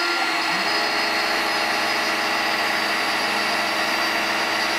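DIY CNC router spindle running steadily as it mills plywood: a constant whine of steady tones over an even hiss.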